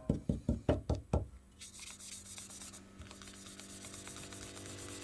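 Quick back-and-forth strokes of a small block rubbing green polishing compound along a Damascus chef's knife blade, about five strokes a second, stopping a little over a second in. A faint steady hum follows.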